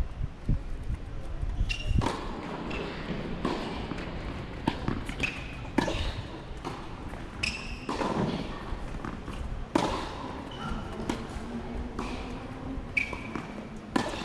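Tennis balls being struck by rackets and bouncing on a hard court during rallies, a sharp pop every one to two seconds at an uneven pace.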